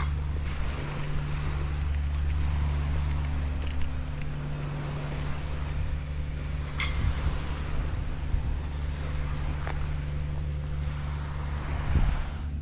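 Low, steady engine drone with an unchanging pitch, with a few light clicks and one louder knock near the end.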